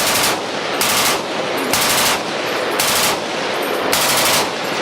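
Machine gun firing in short bursts, about one burst a second, five in all, with continuous gunfire heard between the bursts.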